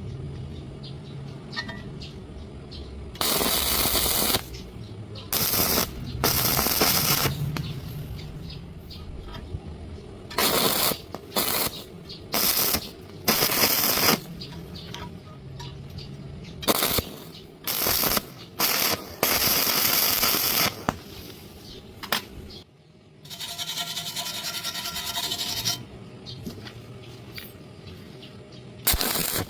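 Electric arc welding in short bursts on a crack: a harsh crackling hiss, each burst lasting from about half a second to two seconds, with short pauses between them.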